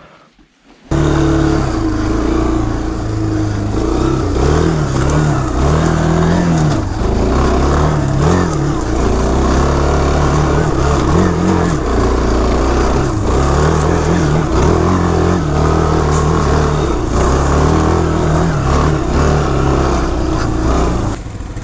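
ATV engine running under load, its pitch rising and falling again and again with the throttle, heard close up from the rider's seat. It starts abruptly about a second in.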